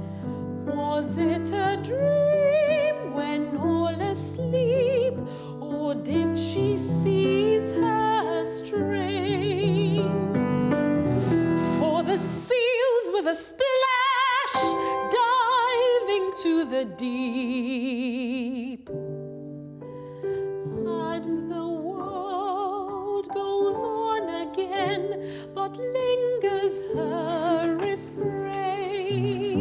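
Classical soprano singing an operatic melody with wide vibrato over piano accompaniment, rising to high held notes about halfway through.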